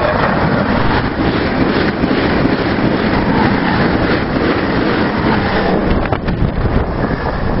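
Stadler FLIRT electric multiple unit passing at speed close by: a loud, steady rush of wheels on rail and moving air, with wind buffeting the microphone. It breaks off abruptly about six seconds in, giving way to quieter, more distant train noise.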